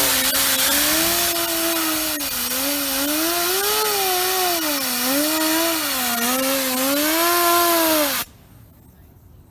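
Compressed air from an air compressor blasting at a bearingless fidget spinner: a loud hiss with a humming whine from the spinning spinner that wavers up and down in pitch. The air cuts off suddenly about eight seconds in.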